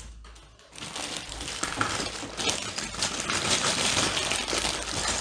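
A plastic LEGO parts bag being opened, crinkling, with the small plastic LEGO pieces inside clicking and rattling, starting about a second in.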